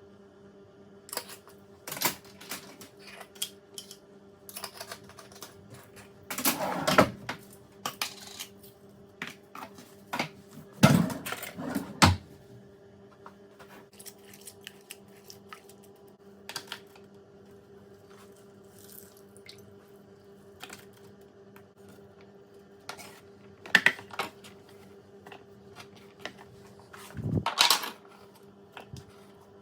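Scattered light taps and clicks of small objects being handled, with a few louder clattering clusters about six, eleven, twenty-four and twenty-seven seconds in, over a steady low hum.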